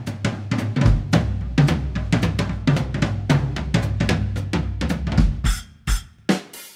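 Background music: a drum-kit beat of kick, snare and cymbal hits over a steady low bass line. About five and a half seconds in the beat thins out to a few isolated hits.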